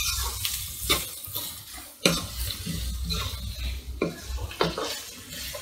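Sliced red onions frying in oil in a pan, stirred and tossed with a spatula: several scraping strokes of the spatula against the pan over a light sizzle.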